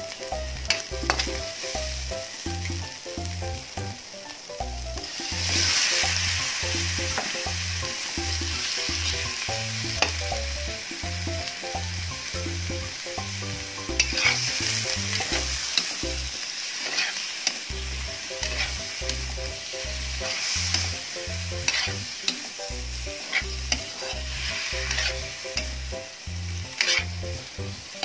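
Chicken, garlic and onion sizzling and frying in a wok over a gas flame, with sharp clicks and scrapes of metal tongs against the pan. The sizzle flares up loudly a few times, once as raw chicken pieces go into the pan.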